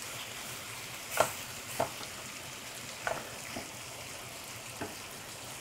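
Shrimp frying in a stainless steel skillet with a soft, steady sizzle, while a wooden spatula stirs the pan, scraping and knocking against it a few times.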